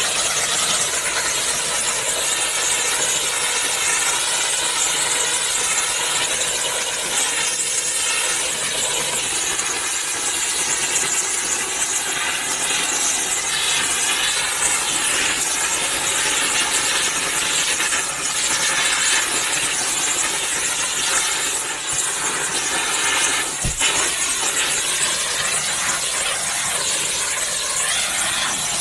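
Pressure washer spray hitting a hard surface: a steady, loud hiss of water.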